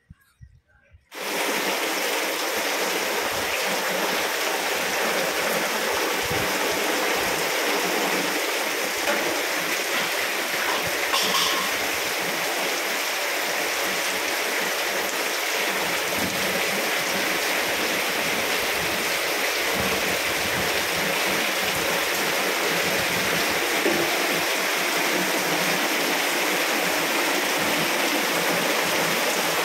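Heavy rain pouring down as a loud, steady, even hiss. It starts abruptly about a second in.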